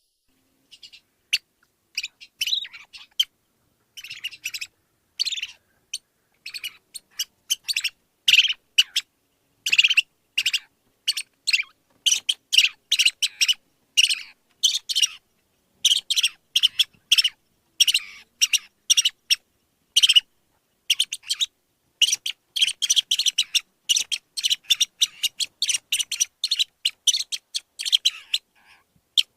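Small bird chirping: rapid runs of short, high tweets with brief silent gaps between the runs.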